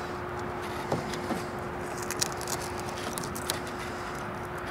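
Faint handling noises: a few small clicks and rustles of a hand working at a Velcro strap under a convertible top's trim, over a steady low hum.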